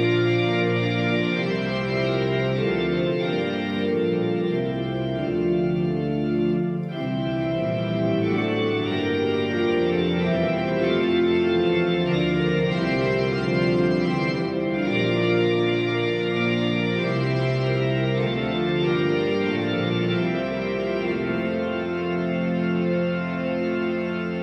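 Organ playing a closing hymn in slow, held chords, with no singing.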